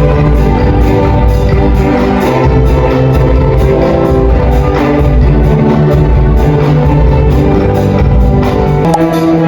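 Instrumental music with sustained chords, a deep bass and a steady pulse in the high percussion.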